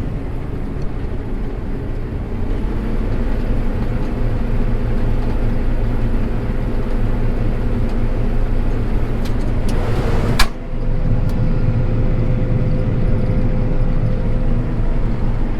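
Combine harvester running with everything engaged on a test run, a steady engine drone that grows louder about two seconds in; the owner hears no abnormal noise from it. A single sharp knock about ten seconds in, with a brief dip in the sound.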